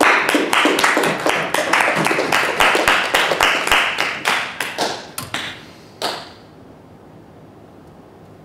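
A small group of people applauding, with separate claps audible, dying away about five seconds in and stopping around six seconds in.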